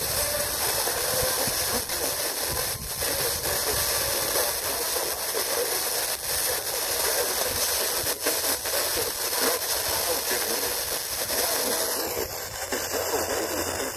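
FM radio static from a TEF6686 receiver tuned to a weak, distant station: a steady hiss with faint, barely readable audio underneath. About twelve seconds in, the noise changes suddenly as the receiver moves to another frequency.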